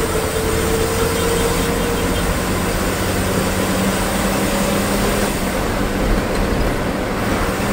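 Steady drone of a KSRTC bus's diesel engine and road noise, heard from inside the cabin near the front while the bus is under way.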